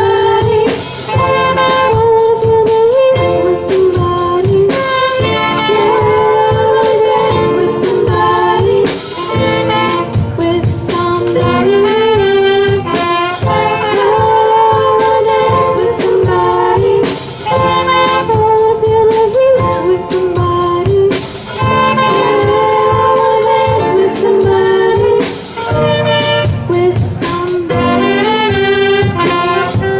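A live band playing, with a lead vocal held over a steady drum beat.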